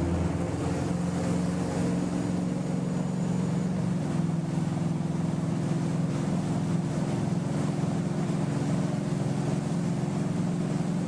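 Motorboat engine running steadily under way, over a rushing haze of water and wind noise; the engine note shifts slightly about four seconds in.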